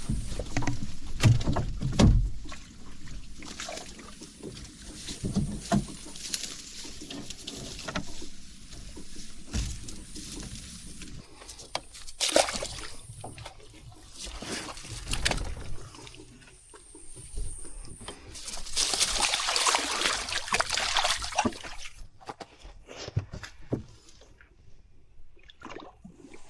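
Knocks and bumps from movement in a small boat, with water sloshing against the hull. A longer rushing splash comes about two-thirds of the way through.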